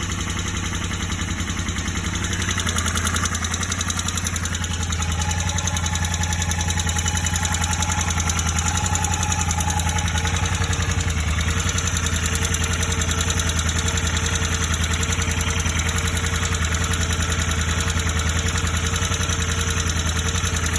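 Royal Enfield Interceptor 650's parallel-twin engine running steadily at idle with a knocking sound, which the owner noticed after adjusting the tappets and riding the bike.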